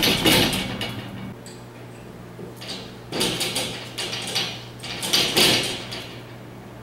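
White metal baby gate rattling and clattering in several short bursts as a dog jumps against it and scrambles over it.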